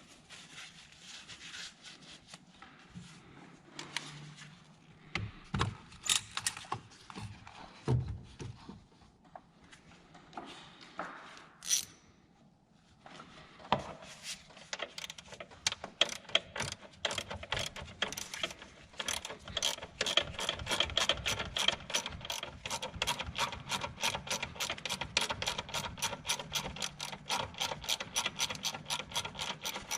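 Hand ratchet wrench clicking steadily, about four clicks a second, through the second half. Before that come scattered knocks and clicks of tools and parts being handled.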